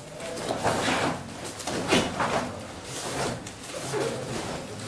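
Taekwondo uniforms swishing and snapping as a group of performers punch and strike through a poomse in unison: a string of short swishes, spaced about half a second to a second apart.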